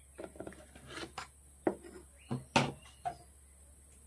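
A plastic tray and a glass bowl being handled on a wooden table: a run of short knocks and clatters, the loudest about two and a half seconds in.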